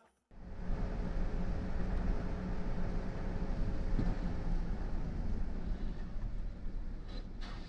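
Steady road, wind and engine noise heard from inside a vehicle driving at highway speed, with a faint click about four seconds in.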